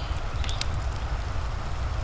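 Fireplace crackling with a few sharp pops about half a second in, over a steady low rumble and an even hiss of rain.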